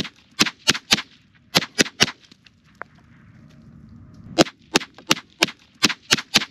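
A .22 LR rifle fired in quick strings of sharp cracks. There are three shots, then three more, a gap of about two seconds, and then seven shots at about three a second.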